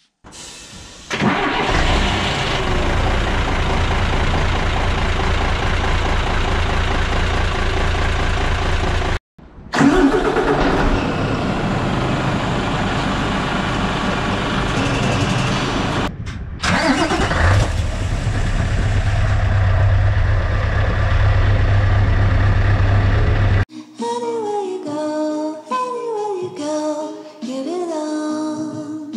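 Three short recordings of truck diesel engines, one after another with brief gaps between them, each starting up and running. At the end, background music with singing.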